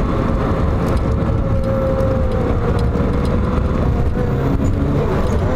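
A young boy imitating a car engine with his voice: one long, steady held hum over a low buzzing rumble, the pitch dipping slightly past the middle.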